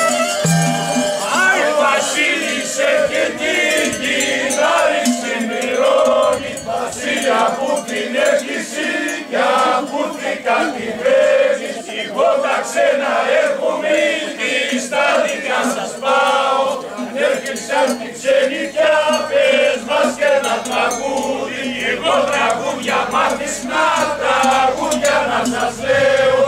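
A group of men's voices singing and calling out together at once, with crowd noise mixed in.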